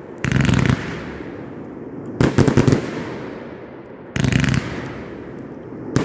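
Fire of Revenge firework going off in four volleys about two seconds apart, each a half-second cluster of rapid cracks followed by a fading rumble.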